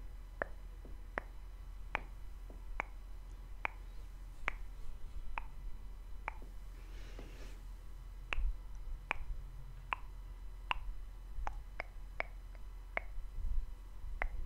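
Close-miked ASMR mouth clicks, short sharp tongue-and-lip clicks coming about one a second, with a brief soft breathy rush a little past the middle.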